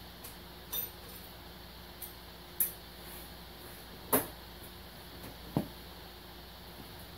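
A handful of short clinks and knocks from metal tools and engine parts being handled during an engine rebuild. The loudest comes about four seconds in, over a faint steady hum.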